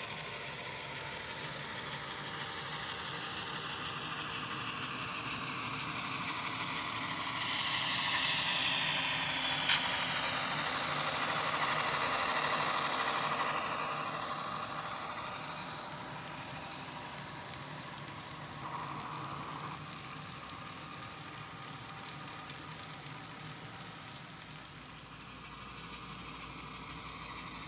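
HO scale model diesel locomotives and freight cars running on the layout's track, a steady engine-like running sound that swells as the train comes close, loudest about eight to fourteen seconds in, then eases off. A single sharp click sounds near the ten-second mark.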